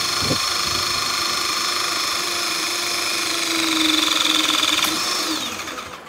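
Cordless battery-powered 120 kN hydraulic crimping tool with its motor and pump running steadily as the hexagonal die presses a lug onto a thick cable. The motor gets louder with a stronger high whine about three and a half seconds in. There is a sharp click near five seconds, then the motor winds down and stops just before the end.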